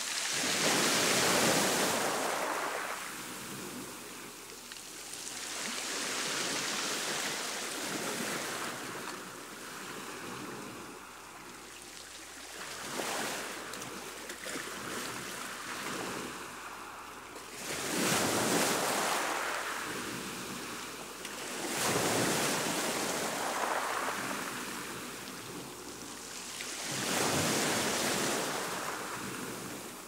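Choppy sea surf washing up over a sandy beach. The wash swells and fades in about six surges, one every four to six seconds.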